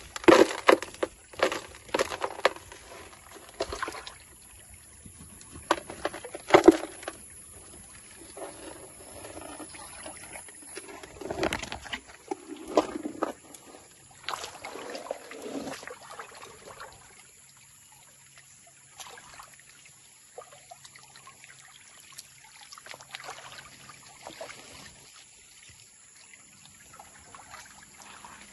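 Bare hands scraping and digging gravelly soil, a run of crunches and scrapes over the first several seconds. Then quieter water sloshing and trickling as hands work in a shallow, muddy stream with a gold pan.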